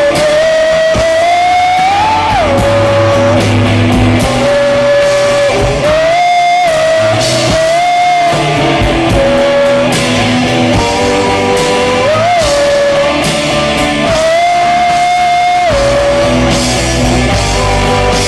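Live rock band playing electric guitars and drum kit. A lead melody line moves in long held notes with slides between them over the rhythm guitar and drums.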